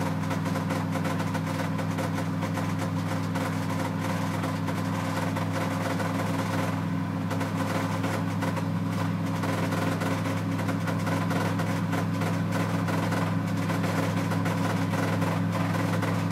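1992 Ford F150's 302 (5.0 L) V8 idling fast and steady, heard from inside the cab. The owner blames the high idle on a faulty throttle position sensor.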